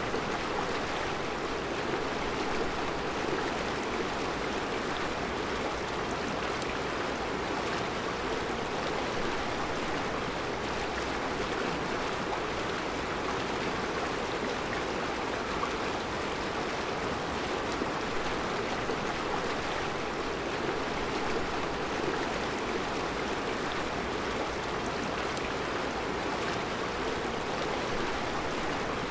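Mountain river flowing over round rocks in a rocky riverbed: a steady, even rush of water.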